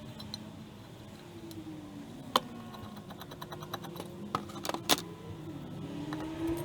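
Sharp metallic clinks and taps of steel tools and lathe parts being handled during disassembly, one a little over two seconds in and a quick cluster of several near the end, over a steady low background hum.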